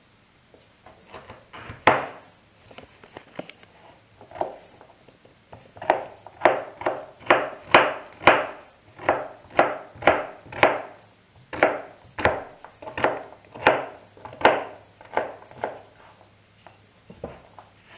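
Chef's knife dicing carrot on a plastic cutting board, each stroke a sharp knock of the blade through the carrot onto the board. A few scattered cuts, then a steady run of strokes a little under two a second from about six seconds in, stopping near the end.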